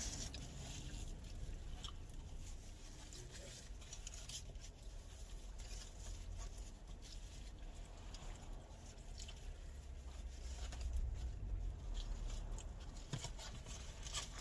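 Faint eating sounds: quiet chewing with scattered small clicks and mouth noises, over a low steady hum.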